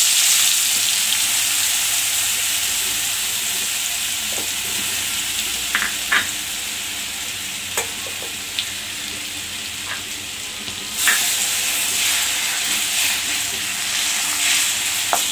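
A slab of butter sizzling as it melts in hot oil in a hammered stainless steel pan: a steady frying hiss with a few sharp crackles. About eleven seconds in the sizzle grows louder, and near the end the butter is stirred with a wooden spoon.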